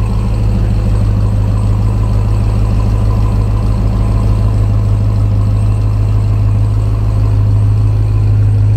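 2021 Ram 1500 TRX's 6.2-litre supercharged Hemi V8 idling steadily, heard close to its exhaust tips.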